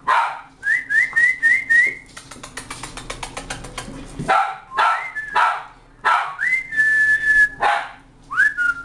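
Maltese puppies yapping in short, sharp barks. Between the barks come whistled notes: five quick rising ones early, a longer held one later, and a rising one near the end. In the middle there is a fast patter of light clicks.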